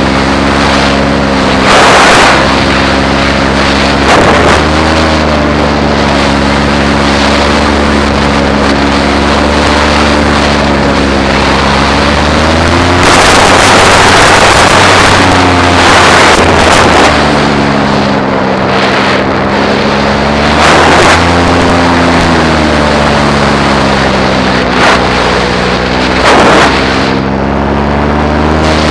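Paramotor engine and propeller running steadily in flight, the engine note rising and falling slightly, with several gusts of wind hitting the microphone.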